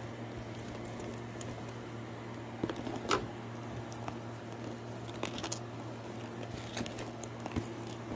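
Handling sounds of a Louis Vuitton Speedy handbag, its cotton dust bag and a cardboard box: scattered rustles and light knocks, the loudest about three seconds in, over a steady low hum.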